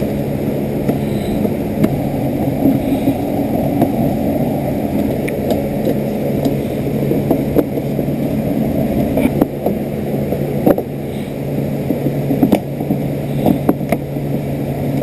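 Steady low hum and rumble, with scattered light clicks and knocks.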